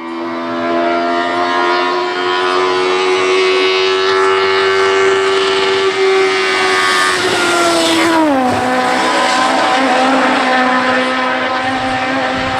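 Race car engine at high revs, holding a steady note, then its pitch drops smoothly over about a second, two-thirds of the way through, and carries on at a lower note.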